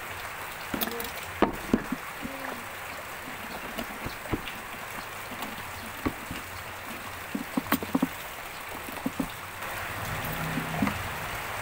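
Cardboard parcel wrapped in plastic being handled and pulled open by hand: scattered short taps, scrapes and crinkles over a steady hiss.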